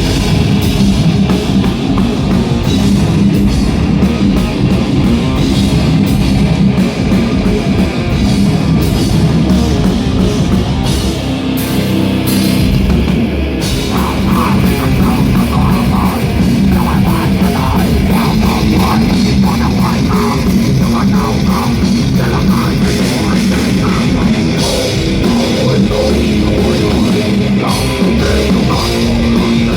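Live heavy rock band playing a song at full volume: distorted electric guitar over a drum kit.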